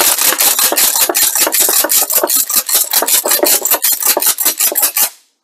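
Mossberg 12-gauge pump-action shotgun racked rapidly back and forth, clacking as it feeds and ejects 1¾-inch mini shells one after another through a universal cartridge adapter, with no shots because the firing pin is removed. The run of clacks stops suddenly about five seconds in, once the magazine is empty.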